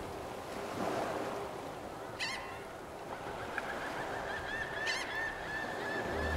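Geese honking, two short calls about two and five seconds in, over a steady wash of waves on a lakeshore. A thin steady high tone comes in about halfway, and a low music beat starts right at the end.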